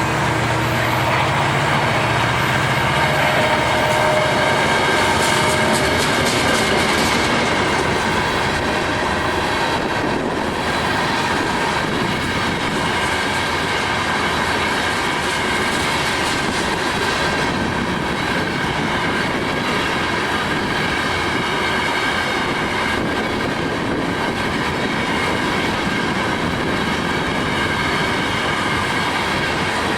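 Freight train cars rolling past, wheels clicking over rail joints with a steady high squeal from the wheels. A low diesel locomotive hum fades out over the first few seconds.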